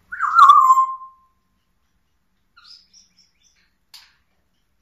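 African grey parrot giving one loud whistled call that slides down in pitch with a wobble and lasts about a second, followed by a few faint high chirps and a brief click near the end.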